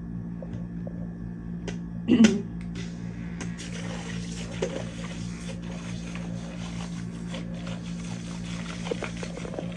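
Electric makeup brush cleaner's small motor whirring steadily as it spins a brush in a bowl of cleaning water, with a swishing of water from about three and a half seconds in. A short louder sound comes about two seconds in.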